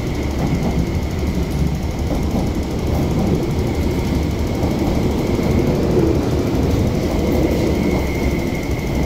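Electric passenger train rolling past on the adjacent track, a steady rumble of wheels and running gear with a faint steady high tone above it.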